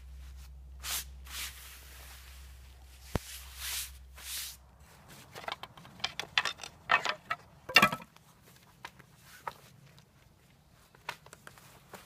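Canvas and fabric rustling and swishing, then a run of sharp clicks and wooden knocks, loudest just before eight seconds in, as a wooden-framed Byer of Maine folding cot is handled and drawn from its canvas bag. A low steady hum underlies the first five seconds and then stops.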